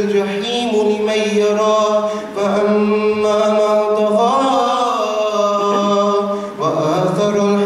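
A young man's voice reciting the Quran in a slow, melodic chant, holding long steady notes with rising ornamented turns, and breaking off briefly for breath about two and a half seconds in and again near the end.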